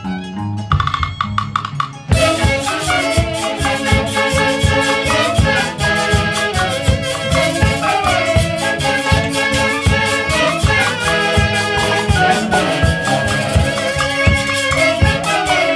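Andean orquesta típica music: a thinner instrumental passage, then the full band comes in about two seconds in with a steady, driving beat.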